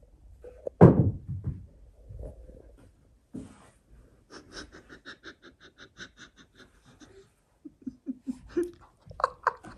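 Breathy, nearly silent laughter: a loud outburst about a second in, then rapid huffs of breath, about five a second, for a few seconds, and a few short voiced sounds near the end.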